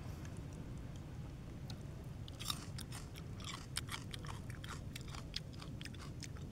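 A person chewing and biting raw fish and seaweed close to the microphone: wet, crunchy mouth clicks, thickest in the middle. A steady low rumble sits underneath.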